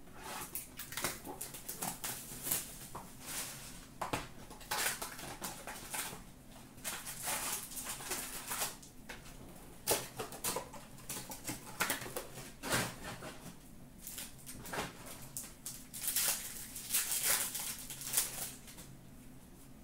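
Foil hockey-card pack wrappers being torn open and crinkled while the cards are pulled out and handled, in irregular rustling bursts.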